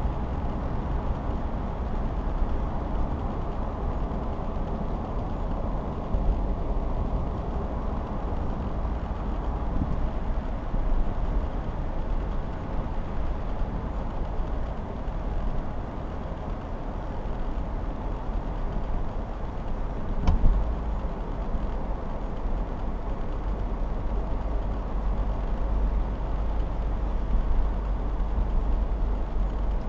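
Steady road and engine noise heard inside a moving car's cabin, with a single brief knock about twenty seconds in.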